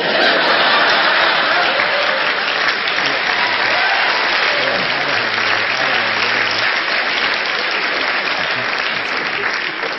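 Stand-up comedy audience applauding steadily after a punchline, easing off slightly near the end.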